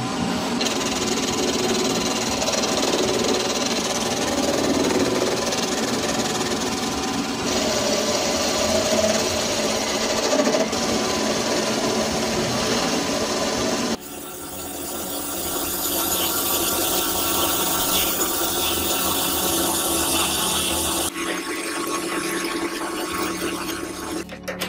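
Metal lathe running while the cutting tool turns down a steel bolt, the tool shaving metal off the spinning work. The sound changes abruptly twice, about two-thirds of the way in and again near the end.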